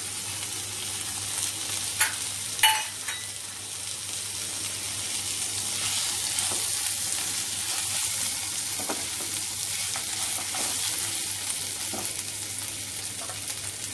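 Mung dal and rice frying in mustard oil with added peas, coconut, peanuts and raisins, a steady sizzle while being stirred. Two sharp knocks of the stirring utensil against the pan come about two seconds in, with a few lighter taps later.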